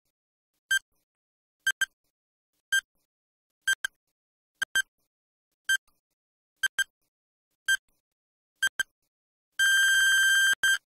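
Electronic countdown-timer beeps, about one a second, several of them quick double beeps, marking the count from ten to zero. Near the end a long beep of about a second sounds as the timer runs out, followed by a last quick double beep.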